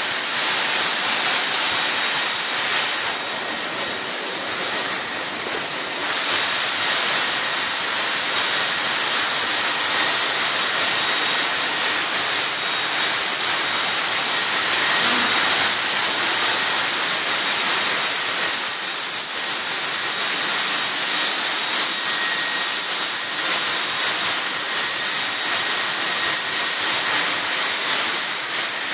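Laser cutting machine running with its air and extraction going: a steady rushing of air with a thin high whine above it.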